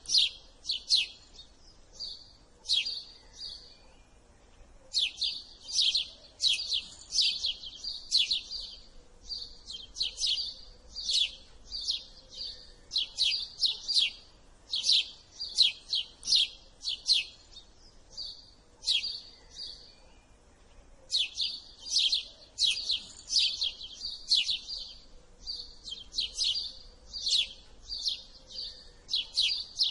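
House sparrow chirping: quick runs of short, high cheeps, with two pauses of a couple of seconds between runs.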